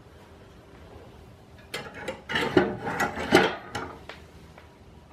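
A quick run of clicks, knocks and scrapes from a cast-iron multi-fuel stove being handled, starting a little under two seconds in and lasting about two seconds.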